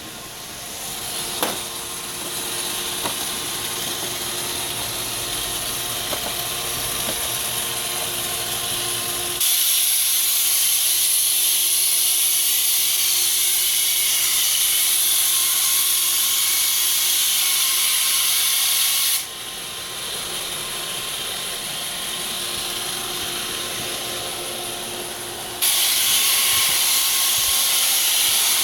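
iRobot Roomba 565 Pet robot vacuum running with a steady mechanical hum. A loud, harsh hiss cuts in abruptly about nine seconds in, stops around nineteen seconds and starts again near the end: the strange noise the owner is showing.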